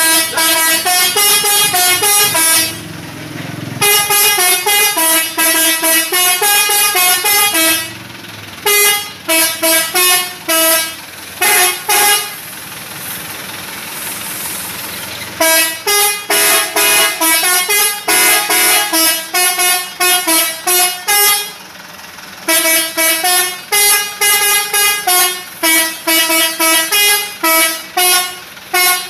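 Telolet horn, a set of musical air horns on a Toyota Kijang Innova, playing fast tunes of short loud notes, about four or five a second. The tunes break off a few times, the longest pause lasting about three seconds near the middle.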